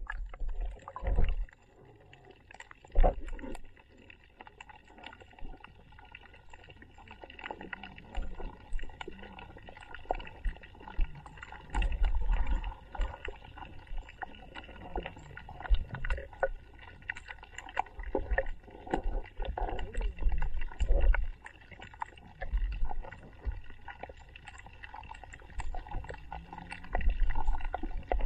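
Underwater sound picked up by an action camera held below the sea surface: muffled water sloshing and irregular low thumps as the swimmer moves the camera, with scattered small clicks and a faint steady hum.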